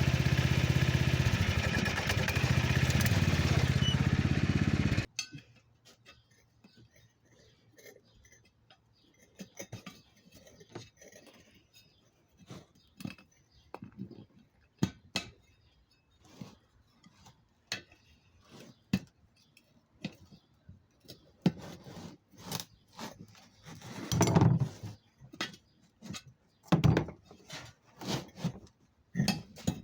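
A loud, steady droning sound cuts off abruptly about five seconds in. It is followed by scattered metallic clinks, knocks and scrapes, louder near the end, as a rear tire of a Simplicity 4212 lawn tractor is pried off its steel rim with screwdrivers.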